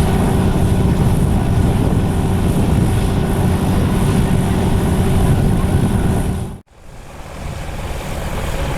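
Light aircraft engine running steadily at the airfield, a constant drone with a steady low hum in it. It cuts out abruptly about two-thirds of the way through, then comes back quieter and builds up again.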